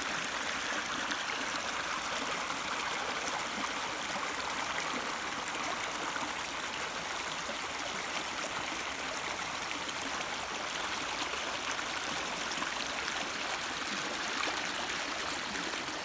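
Creek water flowing steadily, a continuous even rush of running water.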